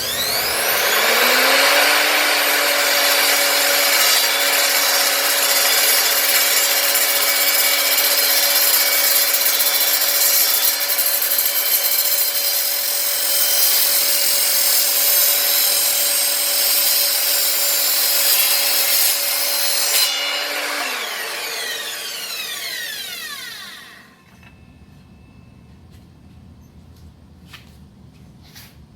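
Evolution R255SMS 10-inch multi-material sliding mitre saw spinning up and cutting through galvanized steel strut channel, which the owner takes for Unistrut, with a steady loud cutting noise over the motor. About 20 seconds in the motor is switched off and the blade winds down with a falling whine, fading out about four seconds later.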